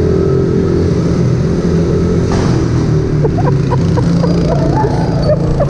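Several mini motorbike engines running close by, heard from one of the bikes, with a steady low drone throughout. Other engines rev in short rising chirps and wavering tones from about three seconds in.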